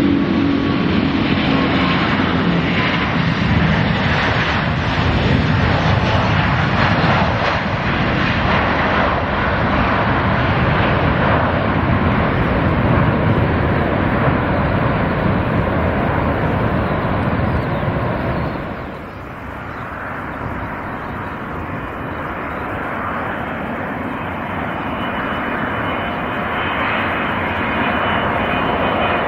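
Airbus A380-800 four-engine jet running at takeoff thrust through its takeoff roll and climb-out, a loud steady roar. About two-thirds of the way in the roar drops off suddenly. The sound of a second A380 approaching to land then builds, with a high engine whine growing in near the end.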